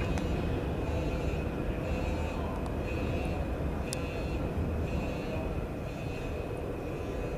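Large sliding hangar door rumbling along its track as it rolls shut, with a thin high tone over the rumble.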